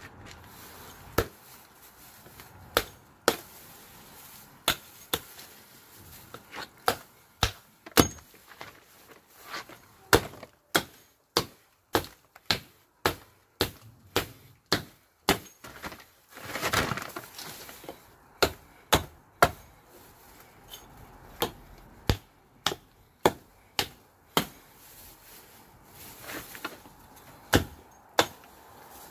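Hatchet chopping branches off the trunk of a cut Nordmann fir: a long run of sharp single strikes into the wood, about one or two a second at an uneven pace. About halfway through there is a rustle about a second long, followed by a few seconds with fewer strikes.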